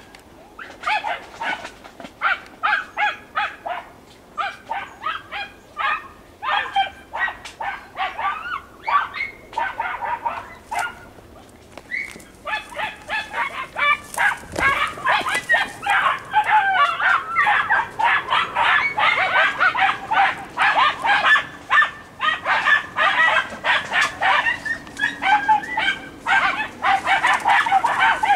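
A pack of Podenco Andaluz hounds yelping and barking in quick, overlapping cries as they hunt a rabbit through the brush. The yelping thickens into a near-continuous chorus about halfway through.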